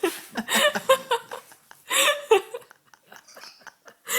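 People laughing in short bursts, fading to faint sounds in the last second or so.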